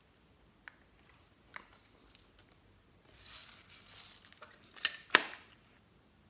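Hard plastic flower-shaped toy container handled and pulled apart: a few light clicks, then rustling and scraping plastic for a couple of seconds, ending with a sharp click about five seconds in.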